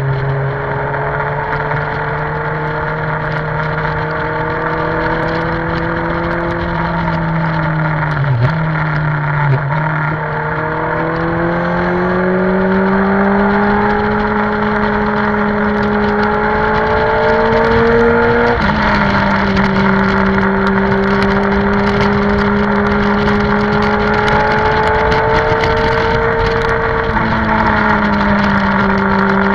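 Benelli TNT600i's inline-four engine running under load on the move, its pitch dipping briefly twice about eight to ten seconds in, then climbing steadily before dropping sharply about eighteen seconds in. Wind rushes over the microphone throughout.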